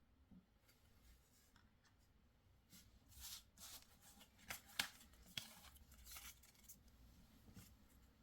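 Faint handling of trading cards and their paper packaging: short scrapes and rustles in the middle, with a couple of sharp clicks among them.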